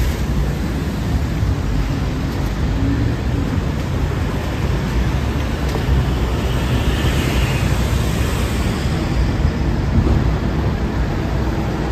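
Steady city street traffic noise with a low rumble, a green city bus running close alongside near the end.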